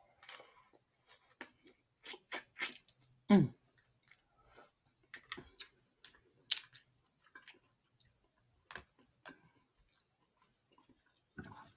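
Snow crab leg shells cracking and being peeled apart by hand, mixed with close-up wet chewing of crab meat: irregular short, sharp crackles and clicks, the loudest about three and a half seconds in.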